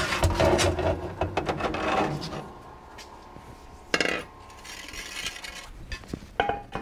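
Metal parts clattering and rattling as they are handled at a sandblast cabinet, busiest over the first two seconds, with a single sharp knock about four seconds in and a few light clicks near the end.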